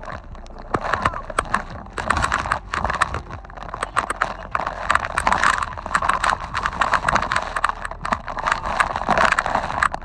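Strong wind gusting across the microphone while spray blown back up from a reverse waterfall spatters against the camera in quick, irregular taps.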